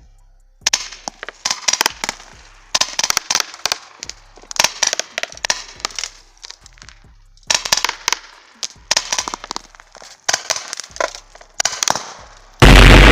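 Airgun firing steel balls on full automatic: a string of rapid sharp cracks in repeated bursts with short pauses between them. Near the end a sudden, much louder crash rings out and dies away slowly.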